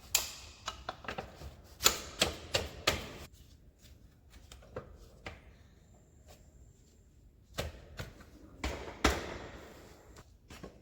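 Metal parts and tools clinking and knocking irregularly as a motorcycle's rear brake parts are handled and fitted, with a quiet stretch in the middle.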